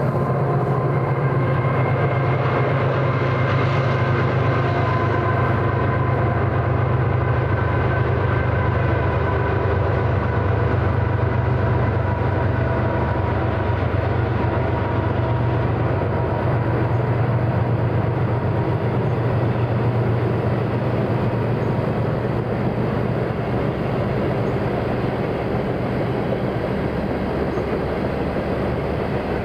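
A train running past steadily, with a strong, steady low engine hum and rolling rail noise that holds at much the same level.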